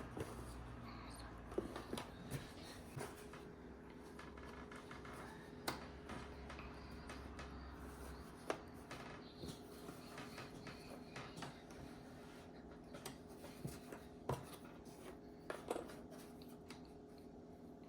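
Cardboard jigsaw puzzle pieces being handled and pressed into place: scattered light clicks and taps, a dozen or so spread unevenly, over a faint steady room hum.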